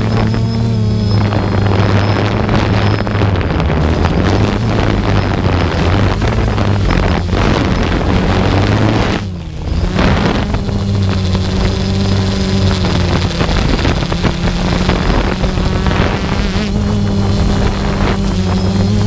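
Motor and propeller of the aircraft carrying the camera, running steadily as it takes off and climbs: a steady drone with wind on the microphone. The level dips briefly about halfway through, then the drone resumes.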